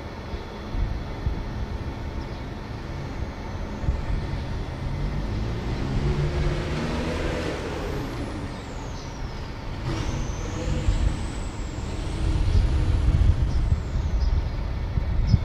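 CSR SDA4 diesel-electric locomotive running while shunting a cement train, its engine note climbing about six seconds in and then easing back, over a steady low rumble. A thin high whine slides down, jumps up, and falls away again in the second half.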